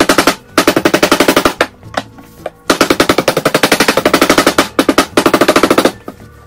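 Handled rolling pin clacking rapidly as it is rolled back and forth over a block of dough, about a dozen clicks a second, in runs of one to two seconds with short pauses between strokes.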